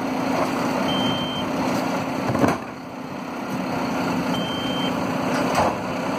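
Automated side-loader garbage truck running, its diesel engine and arm hydraulics working as the yellow gripper closes on a trash cart and begins to lift it. A clunk comes about two and a half seconds in, and two short, high beeps come a few seconds apart.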